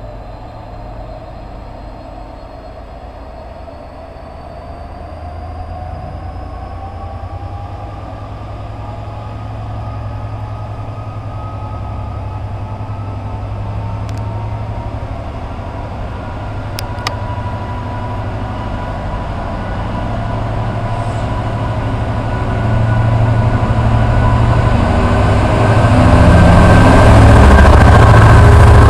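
GBRf Class 66 diesel-electric locomotive, its EMD two-stroke V12 engine running with a low rumble as it approaches hauling a container train, growing steadily louder until it draws alongside near the end. A whine over the rumble rises slowly in pitch.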